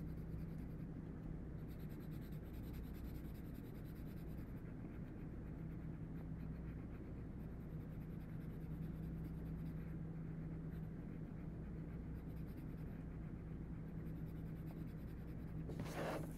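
Graphite pencil scratching steadily on paper as a value-scale box is shaded over and over to darken it, with a steady low hum underneath. Near the end there is a brief rustle as the sheet is turned on the desk.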